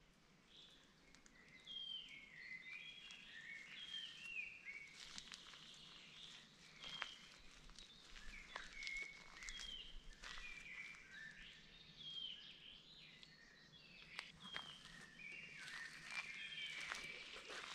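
Several songbirds singing in woodland, a string of short whistled phrases, many of them falling in pitch, starting about a second in. Footsteps crunch on a dirt forest track, more often in the second half.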